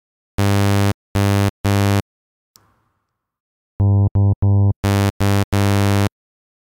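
Synthesized saw wave on a 100 Hz fundamental, played as three short notes, then three notes of the same pitch built from only its first ten harmonics, with nothing above 1 kHz, then three more notes of the full saw wave.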